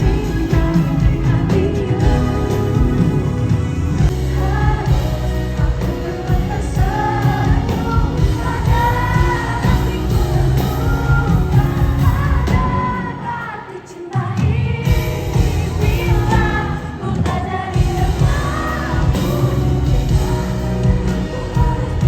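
Background pop song with a singer over a steady beat, dropping away briefly about two-thirds of the way through before coming back in.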